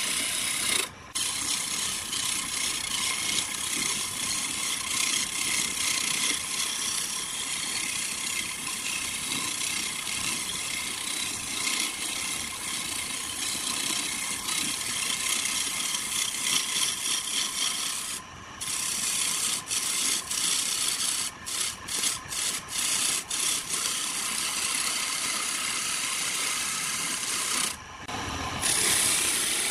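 Hand-held chisel cutting into a spinning wood blank on a belt-driven wood lathe: a steady scraping hiss of shavings peeling off, with a faint steady whine underneath. About two-thirds of the way through, the cutting breaks into many short bursts with gaps between them.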